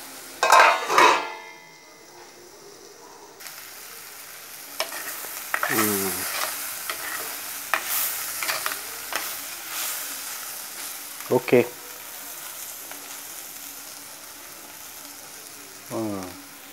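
Beetroot curry sizzling in a clay pot, with a metal spoon stirring it and scraping against the pot now and then. The sizzle comes up suddenly about three and a half seconds in.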